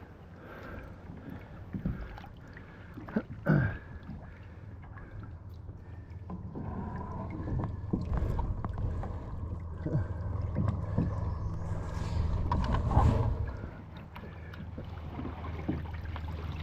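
Water sloshing and splashing around a capsized kayak, with a few sudden knocks and a low rumble that swells through the middle and then drops away.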